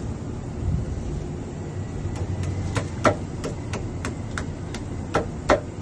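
Light metal clicks and taps of hand tools working on a pipe fitting, about three a second, with two louder knocks, over a steady low machinery hum.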